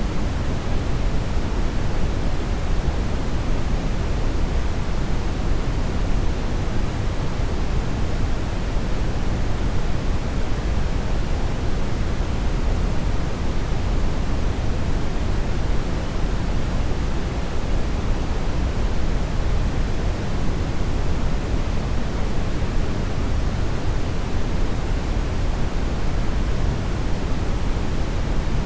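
Continuous brown noise: a steady, deep rushing hiss, strongest in the bass and fading toward the treble, with no changes or breaks.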